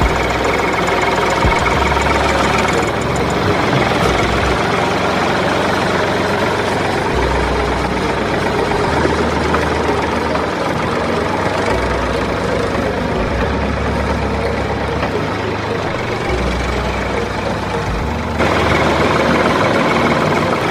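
An engine running steadily at a low, idle-like pace, like a tractor; it gets a little louder about 18 seconds in.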